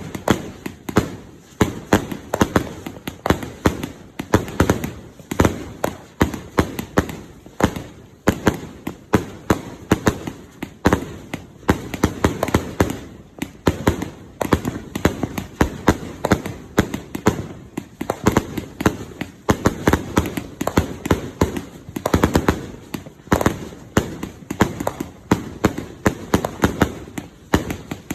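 A 200-shot consumer firework cake firing shot after shot in quick succession, about three bangs a second, without a break.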